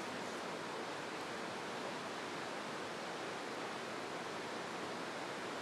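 Mountain stream rushing through a narrow gorge: a steady, even hiss of fast-flowing water.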